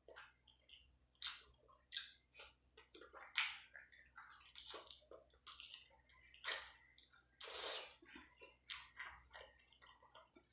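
Wet eating sounds of rice and curry eaten by hand: fingers squishing the rice and curry together on the plate, and chewing with irregular lip smacks and clicks.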